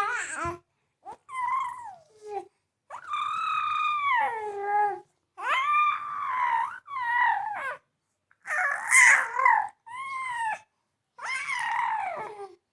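A baby vocalising in a series of high-pitched, whiny cries and squeals that rise and fall in pitch, about eight in a row with short breaks, the longest drawn out for about two seconds.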